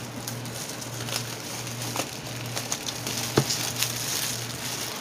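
Clear plastic wrapping crinkling and rustling as a boxed kit is handled and set down, with scattered small clicks and taps, over a low steady hum.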